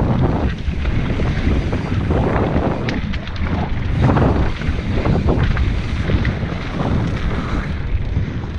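Wind buffeting a riding camera's microphone over mountain bike tyres rumbling on a dry dirt trail, surging as the bike speeds up through the corners, with a few sharp clicks and rattles from the bike.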